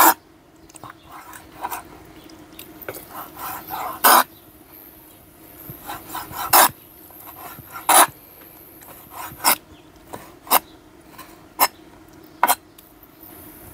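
Kitchen knife cutting squid on a cutting board: about eight sharp knocks of the blade on the board, irregularly a second or more apart, with softer scraping strokes between them.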